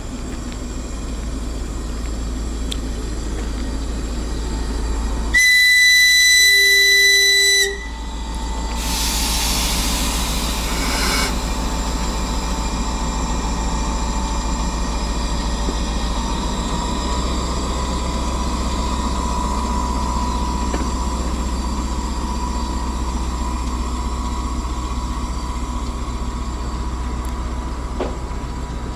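DR1A diesel railcar running steadily, heard from on board. About five seconds in, its whistle sounds loud and steady for about two seconds, followed by a hiss lasting about two seconds.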